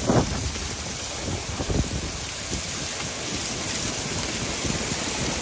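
Heavy rain pouring down in a severe thunderstorm, a steady hiss, with a couple of sharp thumps at the start and another about two seconds in.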